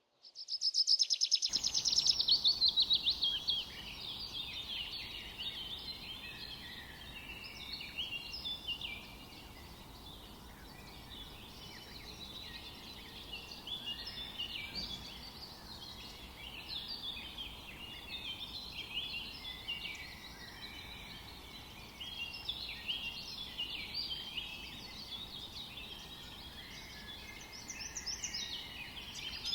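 A chorus of many small birds chirping and singing over one another, over a faint steady low hiss. The loudest part is a rapid run of high notes in the first few seconds.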